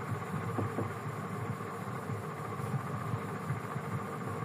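Pen writing on paper, faint irregular scratching of the strokes over a steady background hum.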